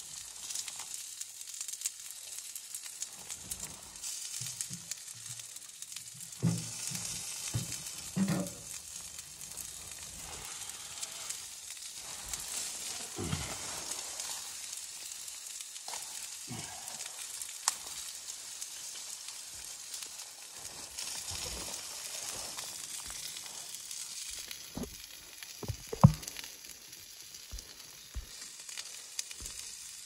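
Food sizzling steadily in a wire grill basket on top of a small wood-burning tent stove, with several sharp knocks and clicks as wood is handled; the loudest knock comes near the end.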